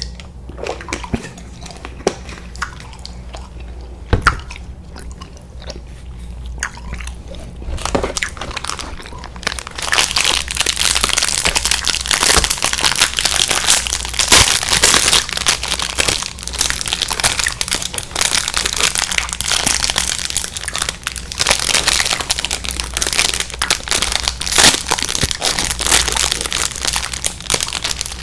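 Close-miked eating: sparse wet chewing clicks at first, then from about ten seconds in dense crinkling and crunching, with bites and chewing.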